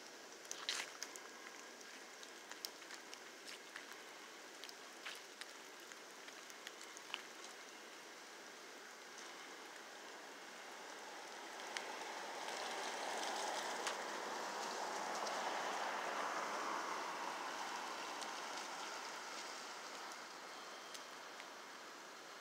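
Light rain: a steady outdoor hiss with scattered small ticks of drops. Past the middle, a broad rushing noise swells for several seconds and then fades away.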